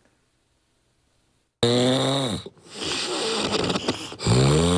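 Heavy snoring, starting about a second and a half in: a loud snore, a rougher, choppier stretch, then another loud snore near the end. It has a halting, choppy sound like a scooter engine that won't start smoothly.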